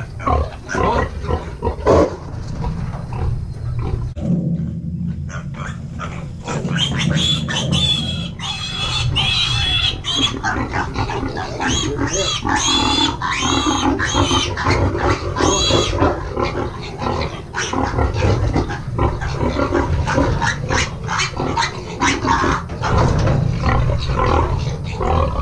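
Berkshire–Yorkshire cross piglets squealing and grunting as they are handled and loaded into a livestock trailer, with a run of loud, high squeals in the middle.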